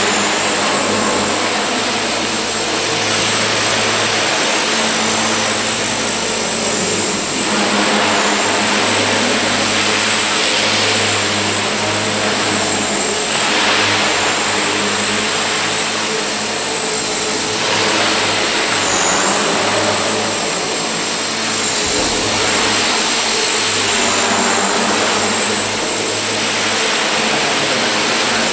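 Radio-controlled model helicopter in flight: a steady high motor whine over the whoosh of the rotor, which swells and fades every few seconds as the model moves about. The whine dips briefly twice about two-thirds of the way in.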